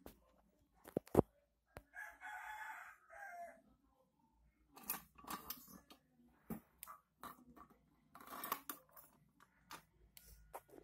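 Knocks and clatter of an old cast-iron charcoal iron being handled and set down on a tiled floor, the loudest a sharp knock about a second in. A rooster crows once in the background, around two seconds in.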